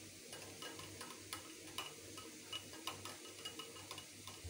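Stainless steel wire whisk beating curd in a glass bowl, its wires clicking against the glass about two to three times a second.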